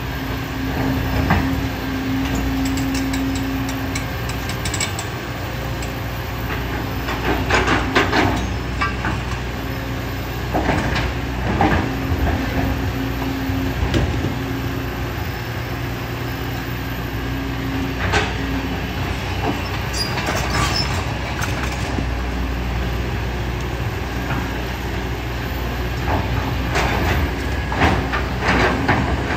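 Kobelco SK200 excavator's diesel engine running steadily under load, with a tone that comes in during the first few seconds and again in the middle, and scattered knocks and rattles of rock and gravel against the bucket.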